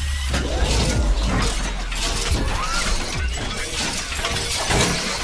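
Ocean surf: waves washing in with a dense crackling hiss over a steady low rumble.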